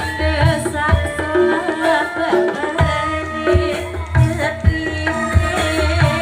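Jaranan accompaniment music: steady Javanese hand-drum strokes under sustained gamelan tones and a wavering melody.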